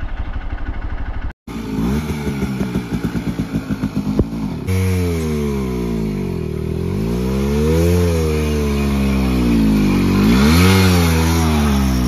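Two-stroke motorcycle engine running at low revs with a fast, even popping beat, which cuts off briefly about a second and a half in. From about the middle onward the engine revs up and down, its pitch rising and falling several times as the bike is ridden along the dirt trail.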